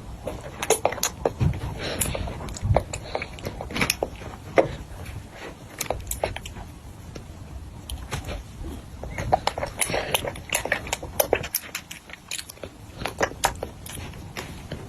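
Chewing and biting on food, with many irregular sharp crunches.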